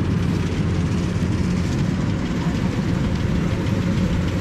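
An engine running steadily, with a constant low drone.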